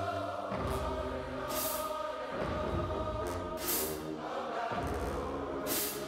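Marching band playing slow gospel music: long held chords with strong low notes underneath, and a cymbal crash about every two seconds.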